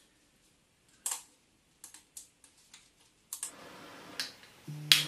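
A series of sharp plastic clicks from an electric scooter's handlebar turn-signal switch being pressed, followed by more clicks over a faint steady hiss, the loudest near the end, with a short low buzz just before it.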